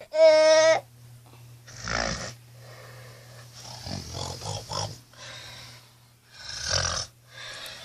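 A person snoring: three rough, rattling snores about two and a half seconds apart, over a steady low hum. The loudest sound is a short, high-pitched whistling tone right at the start, lasting under a second.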